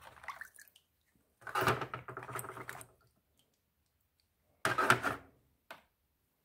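Water sloshing and splashing in a plastic bowl as a hand swishes stones around to wash them, in two bursts, one a little over a second in and one near the end.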